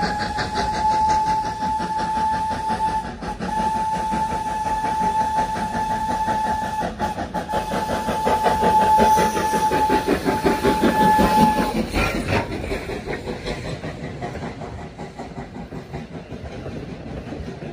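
The locomotive dressed as Thomas the Tank Engine sounds its whistle for a grade crossing: four blasts on one steady tone, the last one short. The whistle plays over the rhythmic clatter of the passing train. After about twelve seconds the whistle stops and the train noise slowly fades.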